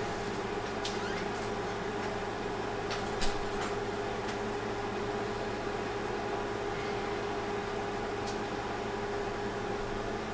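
A steady hum with a faint steady tone, like room tone, with a few faint clicks and one soft knock about three seconds in.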